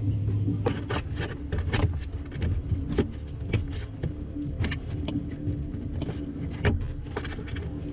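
Irregular clicks, knocks and rattles of wiring-harness connectors and cables being handled and pushed down through a body grommet hole, over a steady low hum.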